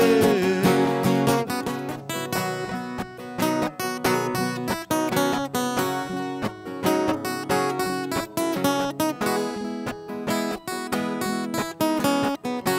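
Sertanejo band playing an instrumental break on acoustic guitars, with quick plucked runs over strummed chords, after the singers hold the last word of the verse for about a second.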